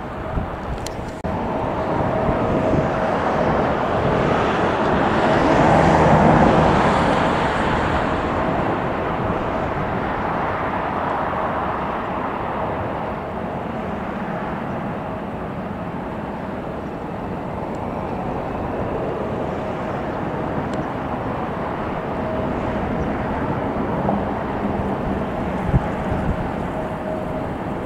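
Jet airliner passing: a broad engine roar that swells to its loudest about six seconds in, then slowly fades into a steady background rumble, with a faint steady whine underneath.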